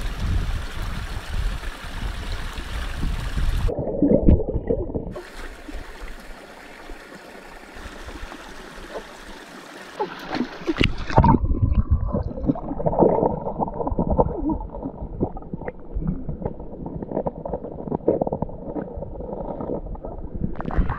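Shallow rocky stream running, then heard from underwater: muffled gurgling and sloshing with many small knocks of stones, briefly about four seconds in and again through the second half, as hands search the streambed for river crabs.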